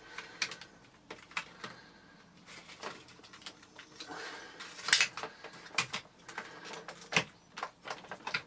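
Hard plastic parts of a vacuum cleaner's floor head clicking and knocking as they are handled, with the brush roll being taken out and parts fitted; the sharpest knock comes about five seconds in.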